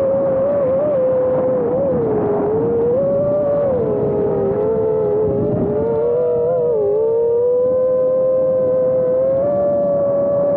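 Brushless motors and propellers of an iFlight Nazgul Evoque F5 FPV quadcopter whining as heard by its onboard camera's microphone, the pitch wavering up and down with the throttle over a rushing noise. For a few seconds in the middle a second whine close in pitch runs alongside it.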